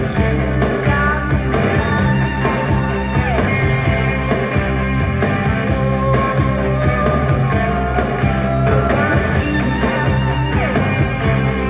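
Guitar-driven rock song playing through a vintage Pioneer SX-580 stereo receiver and bookshelf speakers, loud and steady with a regular beat.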